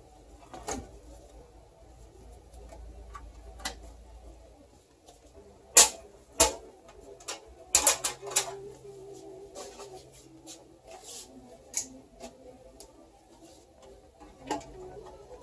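Scattered clicks and knocks from handling computer parts and cables, with two sharp knocks about six seconds in and a quick cluster of clicks shortly after.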